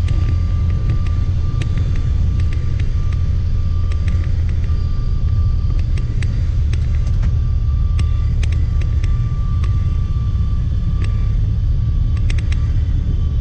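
Small single-engine propeller plane's piston engine and propeller droning steadily, heard from inside the cockpit, with a thin steady whine above it and scattered light clicks.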